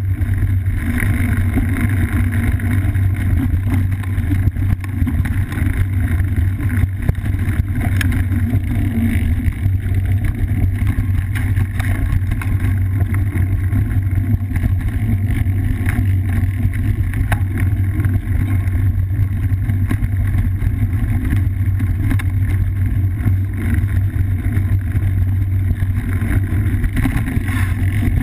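Steady low rumble from a GoPro mounted on a cyclocross bike riding dirt singletrack: wind on the microphone and trail vibration through the mount, with scattered small knocks from bumps.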